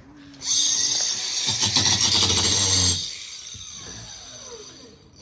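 Small power tool running hard for about two and a half seconds with a high whine, then released and winding down, its pitch falling as it fades.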